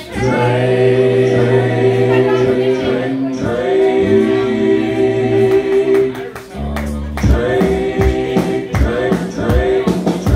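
Karaoke backing track of a boogie-woogie rock song playing through a bar's speakers during an instrumental stretch between sung lines, with held chords. The level dips briefly about two-thirds of the way through before the band comes back in.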